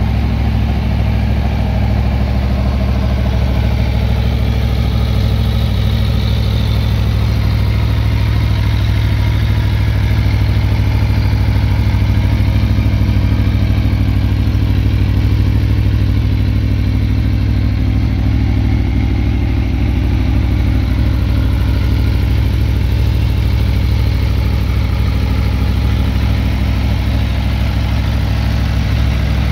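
Aprilia Tuono V4 1100 Factory's 1077 cc V4 engine idling steadily, a little louder around the middle.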